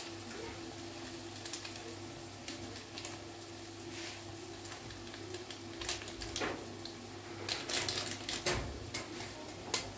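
Stew base frying in a large aluminium pot, with irregular light crackles and pops that grow denser and louder near the end, over a steady low hum.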